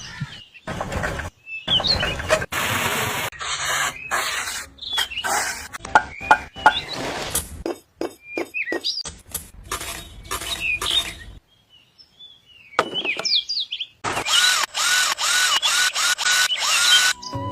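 A choppy run of short, abruptly cut bursts of small power-tool and handwork noise, with bird chirps between them. Near the end a steady hiss with a chirp repeating about twice a second.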